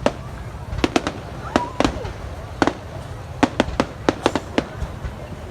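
Fireworks display: more than a dozen sharp bangs and cracks at uneven spacing, some in quick clusters, over a steady low rumble.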